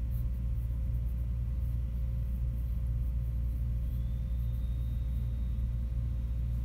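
Steady low background rumble with a faint constant hum, unbroken by any distinct louder event.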